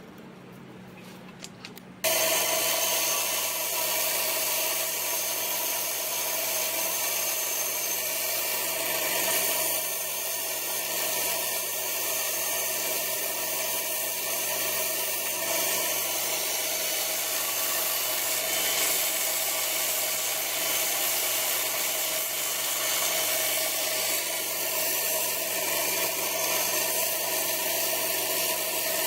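A power tool switches on about two seconds in and runs steadily at an even level, with no hammer blows.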